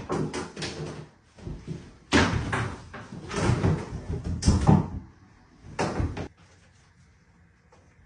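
Wall tiles being knocked and pried off: a quick run of knocks, cracks and scraping that stops about six seconds in.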